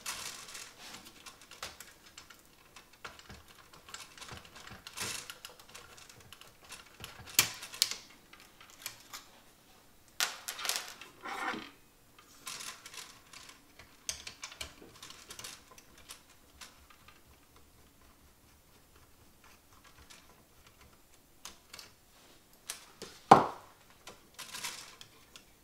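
Small clicks and rattles of hand work on a cassette deck's tape mechanism: a screwdriver on its screws and fingers handling plastic and metal parts as a small circuit board is worked loose. The loudest sound is one sharp click near the end.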